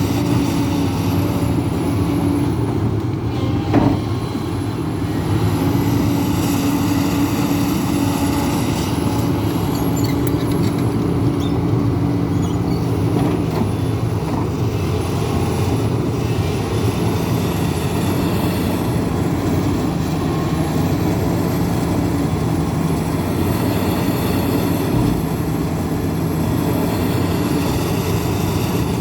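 Hidromek 410LC crawler excavator working, its diesel engine running steadily under load with a whine that shifts in pitch now and then. A single knock comes about four seconds in.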